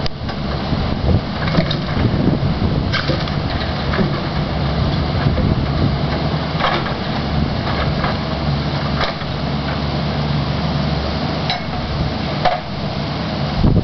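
John Deere forestry forwarder's diesel engine running steadily with a log load aboard, with scattered knocks and clanks from the machine and its load.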